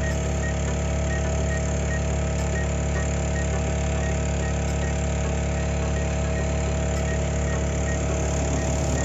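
DJI agricultural spray drone's rotors running in flight over a cornfield: a steady, even hum with several held tones and a strong low drone.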